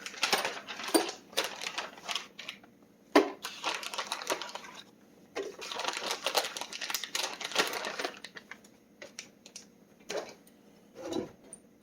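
Rapid metallic clicking and rattling from hand tools and small engine parts being worked during reassembly of a small engine, in three runs of a second or two each, then a few separate clicks and knocks.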